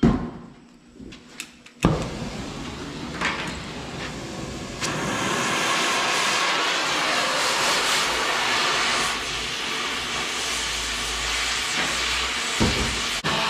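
Cutting torch hissing steadily as it burns holes through steel. It starts suddenly a little under two seconds in and gets louder about five seconds in.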